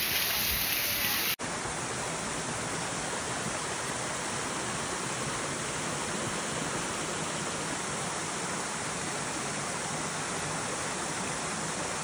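Waterfall rushing, a steady even roar of falling water. It cuts out for an instant about a second and a half in, then carries on unchanged.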